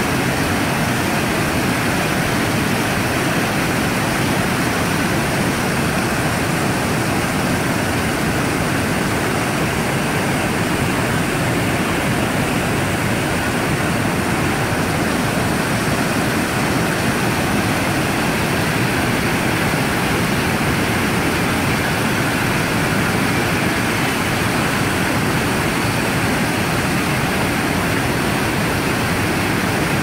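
Wide, low river waterfall with white water spilling over a broad rock ledge, rushing steadily and evenly.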